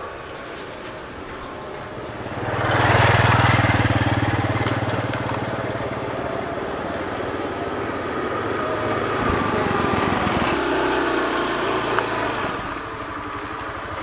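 Small Honda motor scooter engine running as it rides along, swelling to its loudest about three seconds in, then holding a steady hum and easing off near the end as the scooter slows to a stop.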